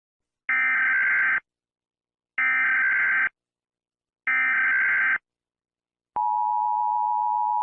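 Emergency Alert System SAME header: three identical data bursts of about a second each, roughly a second apart. About six seconds in, the steady two-tone EAS attention signal begins.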